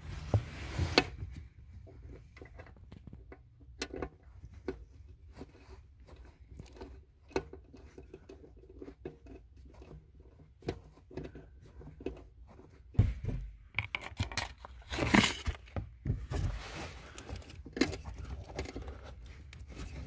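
Scattered clicks, rustles and scraping of hands working plastic wiring connectors, trim and carpet under a car's dashboard. The rustling and knocks grow denser and louder about thirteen and fifteen seconds in.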